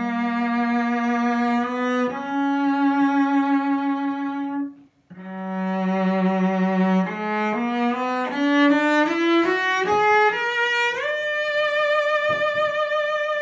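Solo bowed cello, a c. 1910 French Michel-Ange Garini (JTL) cello strung with Kaplan D'Addario strings, playing long held notes with vibrato. After a brief break about five seconds in, it climbs in a rising run of notes and ends on a long held high note.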